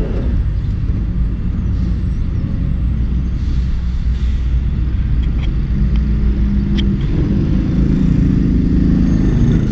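Road traffic of cars and motorcycles running and moving slowly in a steady low rumble. One engine grows louder over the last few seconds as it draws close.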